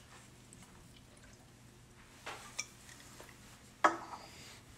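Quiet room with a few light taps, then one sharp click a little before the end.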